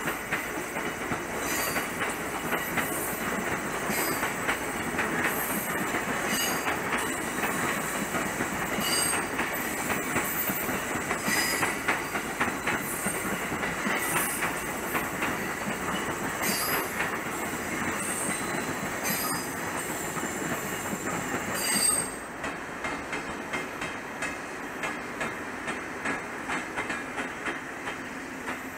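Electric commuter train running past on the far tracks, its wheels clicking over the rail joints amid a steady rumble. About 22 s in, the sound cuts abruptly to a quieter rail scene with lighter, irregular clicking.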